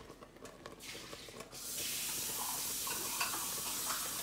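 Sugar syrup for fudge boiling in a pot, with a few faint clicks. About a second and a half in, a kitchen tap is turned on and runs with a steady hiss, filling water for testing the syrup.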